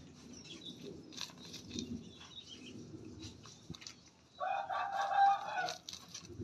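Aseel rooster crowing once, a short crow of about a second and a half beginning a little past the middle, over faint low murmuring and scattered clicks.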